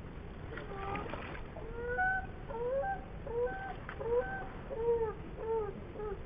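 A bird calling over and over: a rapid series of about ten short, arched calls, starting about two seconds in and coming roughly twice a second, over a steady low background rush.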